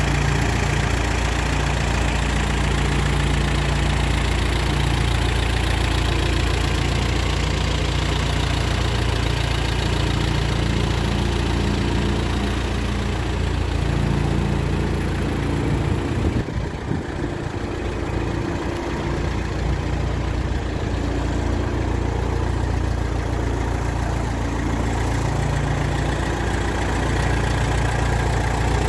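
Minneapolis-Moline GTA vintage tractor's four-cylinder engine idling steadily.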